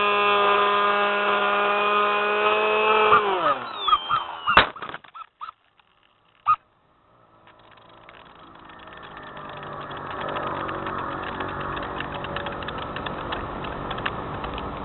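SpyHawk RC plane's electric motor and propeller whining at a steady pitch, then winding down with a quick fall in pitch about three seconds in. A few sharp knocks and a near-silent gap follow, before a rough, noisy hum builds up again over the second half.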